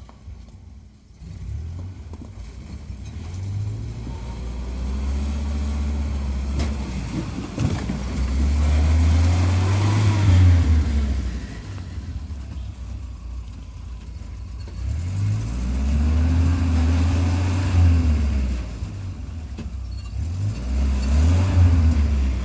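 UAZ Farmer's engine under way, its pitch rising and falling in several swells as it accelerates and eases off.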